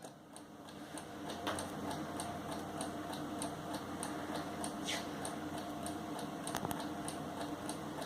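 Kaiser alarm clock ticking with a quick, even beat of about three ticks a second, with a few louder single clicks.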